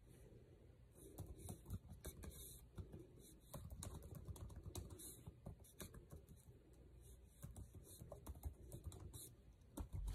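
Faint typing: irregular soft key clicks, a few at a time with short pauses.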